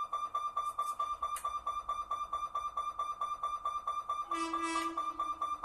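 Level-crossing warning hooter beeping rapidly and evenly at one high pitch, about five beeps a second. About four seconds in, a brief horn blast from the approaching electric locomotive sounds under it.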